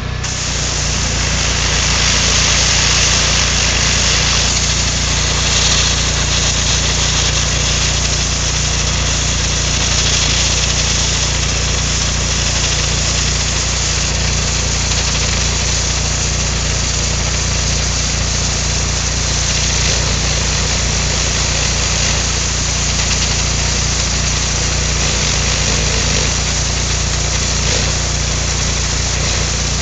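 A 5000 psi pressure washer running steadily, its engine's steady drone under the hiss of the high-pressure jet spraying against a rusted, pitted 1/4-inch steel wheel.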